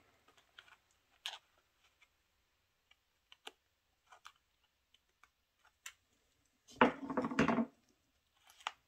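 Small scissors snipping and clicking through the soft, leathery shell of a ball python egg, a scattered run of faint light clicks. About seven seconds in comes a louder sound lasting just under a second.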